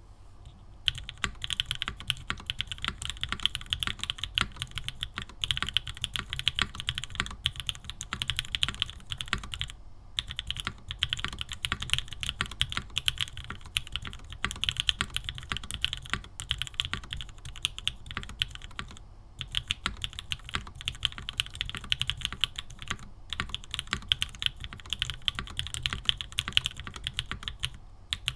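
Steady typing on a Mode Tempo 60% mechanical keyboard fitted with ABS keycaps and Cream Soda switches: a dense run of keystroke clicks starting about a second in, with short pauses twice.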